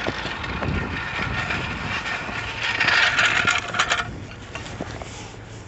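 Road vehicle noise: a vehicle going by, loudest about three seconds in and dropping away at about four seconds, leaving a low steady hum.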